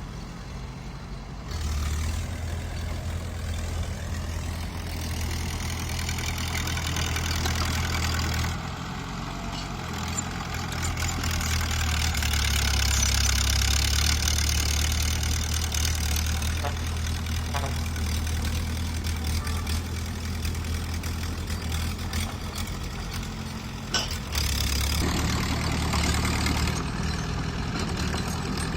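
Bulldozer diesel engine running continuously, its sound rising and falling several times as the load changes. There is a brief sharp knock about three-quarters of the way through.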